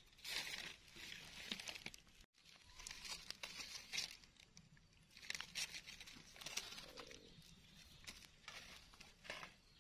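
Faint rustling and crackling of dry fallen leaves, with small scrapes and clicks, as mushrooms are pulled from the leaf litter and their stems trimmed with a knife.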